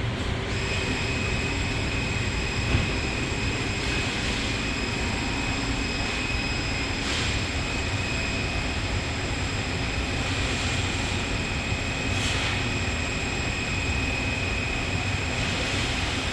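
Doosan PUMA TT1800SY CNC turning center running: a steady mechanical hum, with a high-pitched whine that sets in about half a second in and holds steady.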